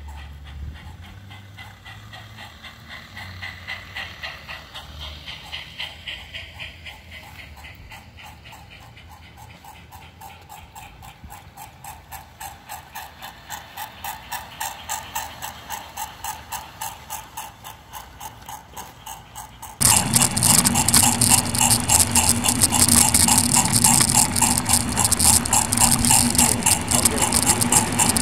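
Newly converted LGB 0-4-0 Porter G-scale model locomotive running on garden track, with even, rapid clicking from its wheels and gears that grows and fades as it passes. About 20 s in it becomes much louder and closer, heard from a car coupled right behind the locomotive: a steady motor and gear hum under fast clicking.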